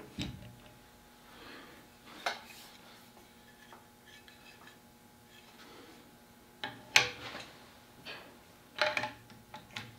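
Short metallic clicks and clacks of a 1905 Ithaca double-barrel shotgun's wooden forend and its iron being handled and fitted against the barrels, a few separate knocks with the sharpest about seven seconds in and a quick cluster near the end.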